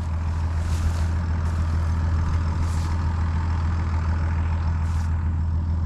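Tractor engine running with a steady low drone, with a few brief hisses over it.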